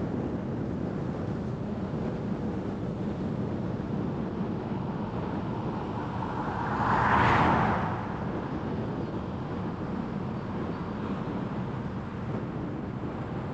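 Steady road and tyre noise of a car driving through city streets. About seven seconds in, a brief rush of noise swells and fades over a second or two.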